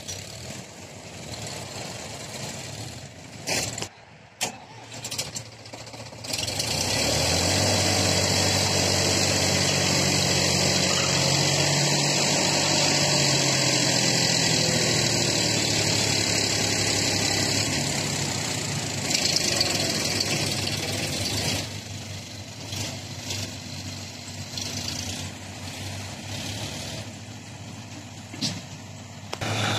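Sonalika DI 35 RX tractor's diesel engine working under load, pulling a loaded trolley through mud. It runs loud from several seconds in, its pitch shifting now and then, and falls quieter for roughly the last third.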